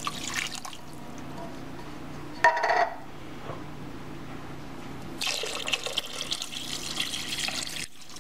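Chicken broth poured into a slow cooker's crock over raw chicken breasts, splashing and trickling. The pour is light at first, with a brief louder burst about two and a half seconds in, then runs heavier from about five seconds in and stops abruptly near the end.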